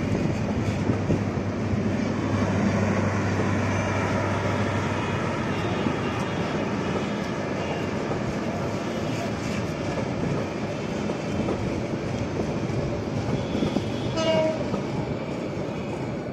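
Intercity express passenger train of Bangladesh Railway rolling out of a station. The coaches make a steady rumble on the rails, with a low hum under it for the first few seconds.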